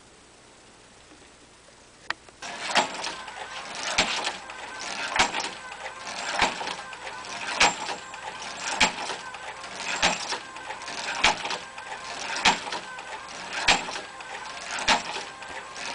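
A sharp click about two seconds in, then a battery-powered weight-rotation test rig starts: its electric motor runs steadily while the spinning weighted arm makes a loud clack about every 1.2 seconds.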